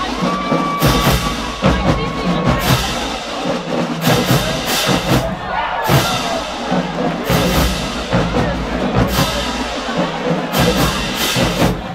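Show-style marching band playing: hard drum and bass-drum hits over low brass and sousaphones, with a held high note for about two seconds near the start.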